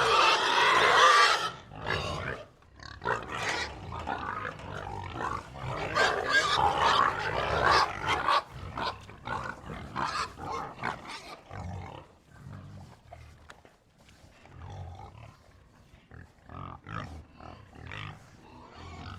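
A herd of pigs grunting and crying out, with a loud squeal in the first second or so. Rapid short grunts follow, busiest up to about eight seconds in, then sparser and quieter.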